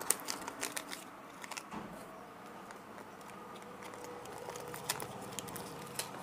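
Packets of circle fishing hooks being handled: a quick run of small clicks and crinkles in the first couple of seconds, then a quieter stretch and a few scattered clicks near the end.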